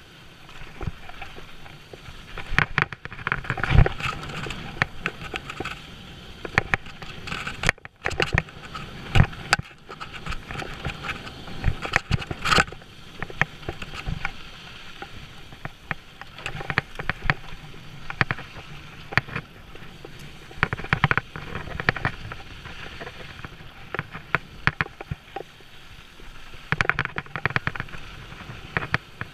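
Mountain bike riding fast down a dry dirt trail: tyres crunching over loose dirt and gravel, with frequent sharp knocks and clatters from the bike as it hits bumps.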